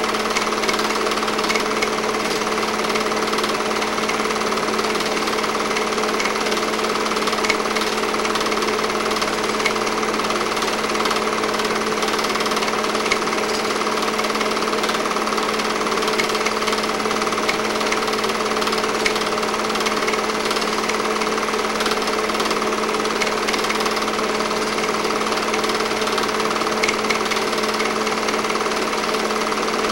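8mm film projector running: a steady mechanical clatter from the film advance over a constant motor hum.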